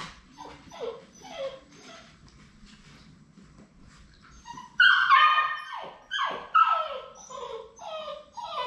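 Labrador retriever puppies whining and yelping: a series of short cries that each fall in pitch, faint at first and much louder from about halfway through.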